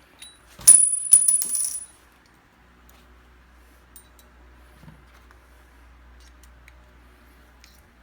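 Small stainless-steel faucet parts clinking against a hard surface: one sharp strike with a high metallic ring under a second in, then a quick cluster of lighter clinks, followed by faint handling noise.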